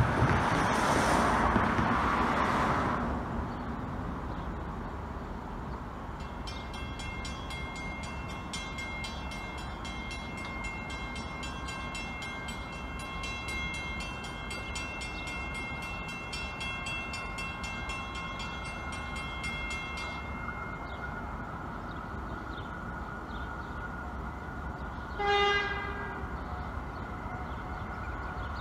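Cars pass over the crossing for the first few seconds. The Western-Cullen-Hayes mechanical crossing bell then rings in rapid, even strokes while the gates come down, and stops about 20 seconds in. A short horn toot sounds near the end.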